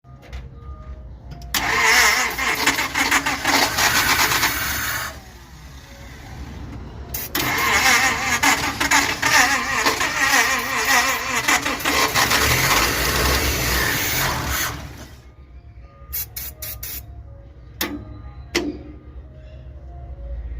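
Dodge pickup truck engine turned over and running in two loud spells, the first about three seconds long and the second about eight, with quieter gaps between and after. Faint background music plays throughout.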